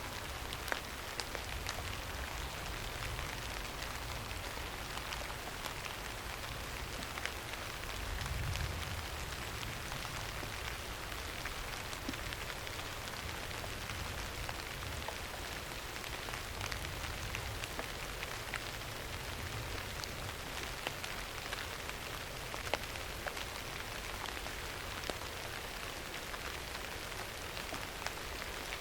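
Steady rain falling on a surface, an even hiss sprinkled with the sharp ticks of single drops. A low rumble swells briefly about eight seconds in.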